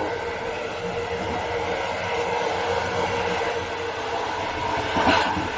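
Passenger train carriage in motion: a steady running noise of wheels and carriage with a constant hum. A brief louder clatter comes about five seconds in.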